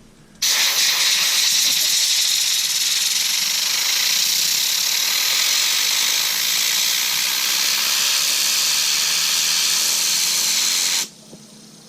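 Compressed air from an air compressor's blow nozzle hissing steadily as it is aimed at a fidget spinner. It starts about half a second in and cuts off suddenly near the end.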